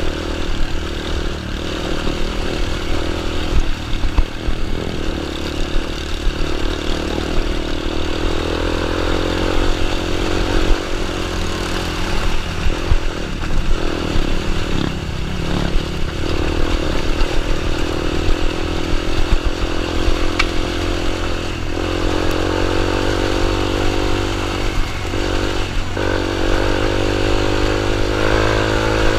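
Small dirt bike engine running continuously, speeding up and easing off several times.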